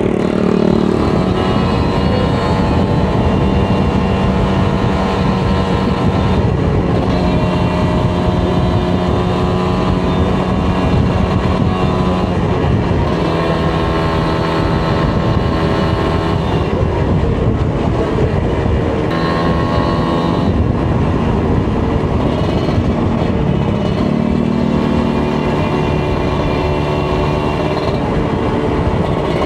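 Kawasaki Ninja 150 RR's two-stroke single-cylinder engine running while riding. Its pitch climbs through the revs and drops back several times, as at gear changes, over a steady rushing noise.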